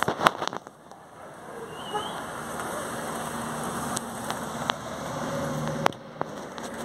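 Close handling noise from a phone pressed against a dog's fur: a quick cluster of sharp clicks and knocks at the start, then a few single clicks later, over steady outdoor background noise.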